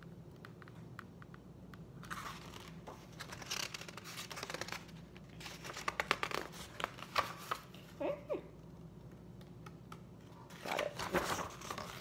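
Paper pages of a picture book being turned and handled: rustling and crinkling in several short bursts with quieter gaps between.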